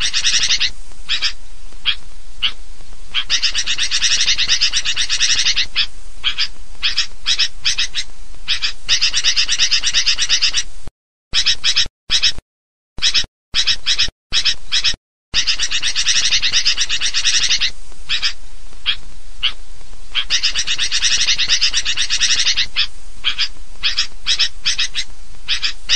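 Sooty-headed bulbuls (kutilang) calling in a noisy, overlapping chorus of rapid, high-pitched chattering: a recorded bird-lure (pikat) track. Between about 11 and 15 seconds in, the sound cuts out to silence several times.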